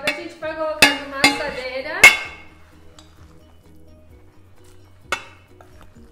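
A metal baking pan knocked down onto a table with a few sharp clanks, the loudest about two seconds in. Then a metal spoon clinks now and then against a glass bowl and the pan as food mixture is scooped, over quiet background music.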